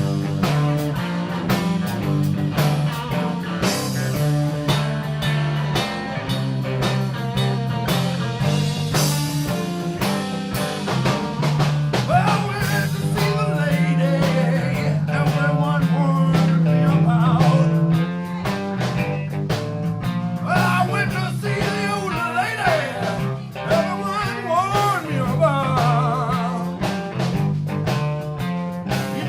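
Live blues band playing a G-minor shuffle: a steady bass line with drums, and from about twelve seconds in a lead line of bent, wavering notes over it.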